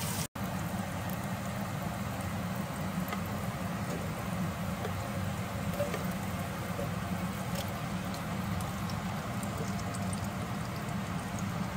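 Sliced red onions sizzling steadily in butter and olive oil in an enamelled cast-iron Dutch oven, with a few faint clicks and a steady low hum underneath.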